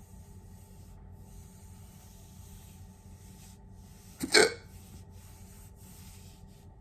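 A single short, sharp hiccup about four seconds in, one of a long-running bout of induced hiccups, over a faint steady background hiss.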